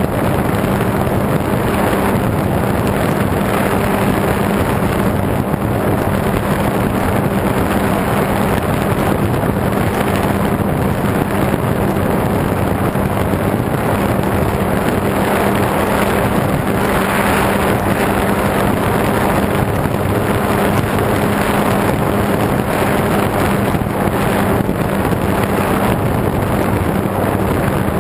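Model airplane's motor and propeller running at a steady pitch in flight, heard from the plane's bare on-board camera, with heavy wind rush over the microphone.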